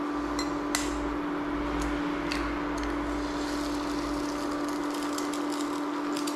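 Induction cooktop running with a steady hum from its cooling fan while eggs are cracked into a hot frying pan. A few sharp taps of shell come early, then small crackling pops from about halfway through as the eggs fry in the oil.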